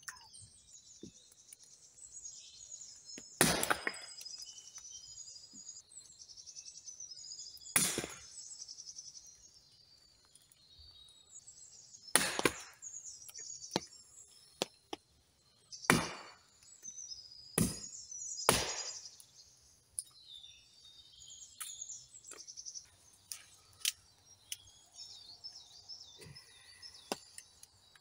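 Wood being chopped into kindling for a fire: six sharp chopping strikes a few seconds apart, then lighter knocks, with birds singing throughout.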